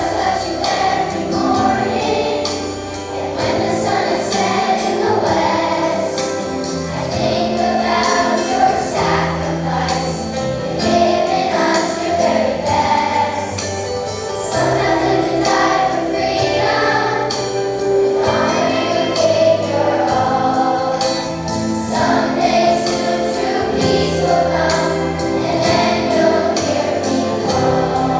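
School chorus singing in unison over an instrumental accompaniment track with a steady beat.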